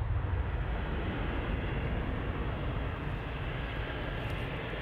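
Jet noise of an Airbus A330's two engines at takeoff power as it rolls and climbs away: a steady, deep rushing roar, easing slightly in loudness toward the end.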